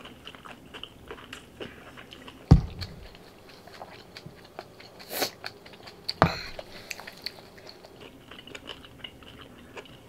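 People chewing food close to the microphone: soft wet mouth clicks. Two sharper knocks on the table come about two and a half and six seconds in.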